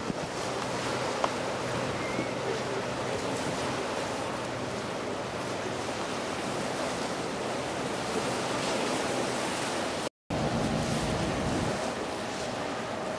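Choppy sea water washing against the rocks of a stone breakwater, a steady rushing noise with wind on the microphone and a faint low hum underneath. The sound drops out completely for a moment about ten seconds in.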